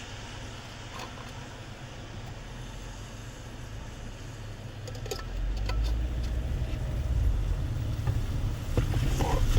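Car on the move: a steady low road and engine rumble that grows louder about halfway through, with a few faint clicks.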